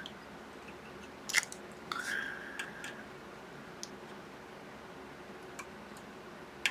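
A few small clicks and taps from tools and parts being handled on a modelling bench, the sharpest about a second and a half in, then fainter ticks over quiet room tone.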